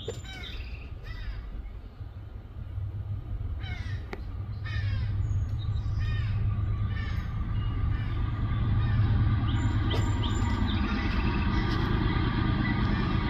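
Short, harsh bird calls repeated through the first half, over a low rumble from an approaching freight train that grows steadily louder from about four seconds in.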